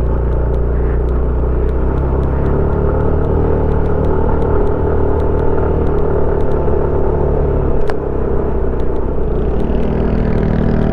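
Yamaha scooter's engine running as it pulls away and climbs a steep concrete road: a steady low drone, with faint clicks throughout and one sharper click about eight seconds in.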